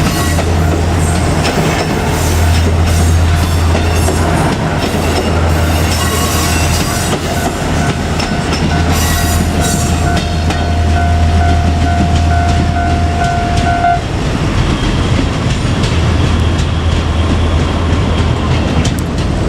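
Four-car JR Kyushu KiHa 200 diesel railcar set running through: a steady low diesel rumble with wheels clattering on the rails. A steady high-pitched tone holds for about six seconds in the middle and cuts off abruptly about 14 s in.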